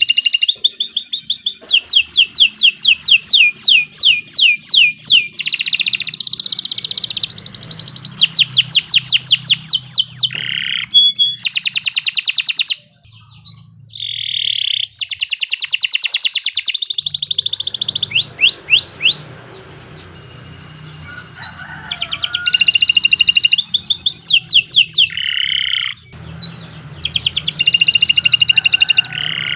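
Domestic canary singing long continuous phrases of rapid trills and repeated chirping notes, with short pauses about 13 and 20 seconds in.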